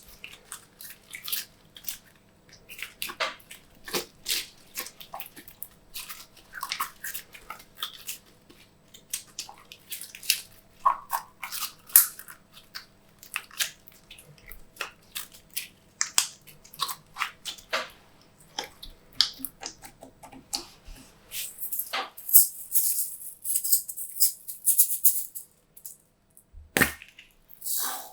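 Glossy slime being squished, stretched and folded by hand, making irregular wet clicks and pops, with a denser stretch of crackling about three quarters of the way through.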